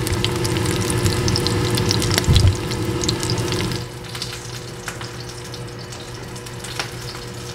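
Squirrel pieces frying in oil in a shallow pan: a steady sizzle full of small crackles and pops, over a low steady hum. The sizzle drops to a quieter level about four seconds in.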